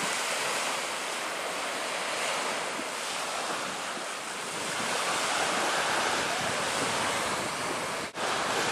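Sea surf washing on a beach, a steady hiss that swells and eases, with wind buffeting the microphone. The sound drops out for an instant near the end.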